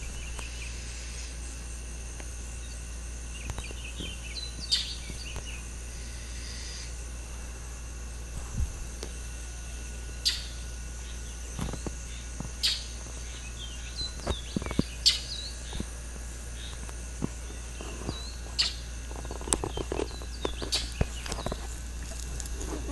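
Outdoor insect chorus: a steady high-pitched drone at several pitches, with short bird chirps scattered through it. Brief clicks and knocks come and go, growing more frequent near the end.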